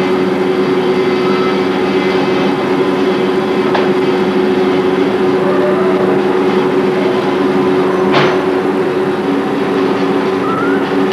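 A loud steady mechanical hum, with faint short kitten mews a few times and a sharp click about eight seconds in.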